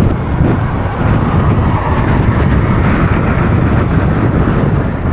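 Wind buffeting the microphone while riding a motorbike, a loud, steady rumble of noise.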